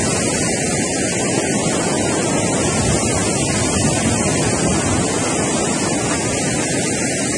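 Rushing mountain river tumbling over boulders under the bridge: a steady, loud sound of white water, with wind buffeting the microphone.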